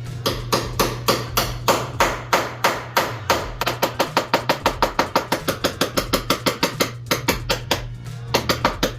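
Hammer blows on a bushing driver tool, pounding door hinge bushings in a Jeep Wrangler JK door hinge. A long run of sharp strikes, about three a second at first, then quickening to four or five a second, with a short pause before a few last blows near the end.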